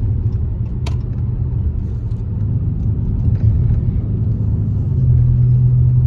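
Car cabin noise while driving: a steady low rumble of road and engine noise, with a steady low hum setting in about five seconds in.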